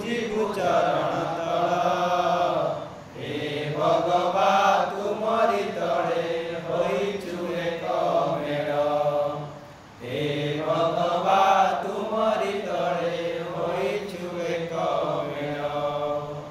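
A man singing an Odia patriotic song unaccompanied, in long drawn-out chant-like phrases, pausing for breath about three seconds in and again about ten seconds in.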